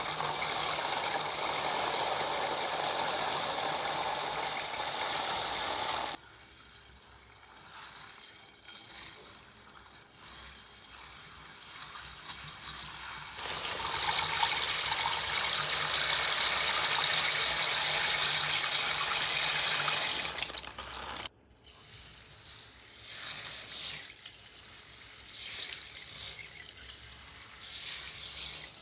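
Slime being mixed and pressed by hand: wet, squishy sounds with long stretches of steady hiss, broken by abrupt changes where one clip gives way to the next.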